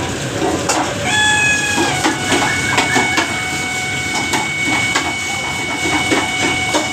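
Samsung microwave oven running with a steady whine and irregular clicking and rattling from its fan motor. The owner puts the noise down to dust and dirt settled in the fan motor, which needs opening and greasing. A steady electronic tone sounds about a second in.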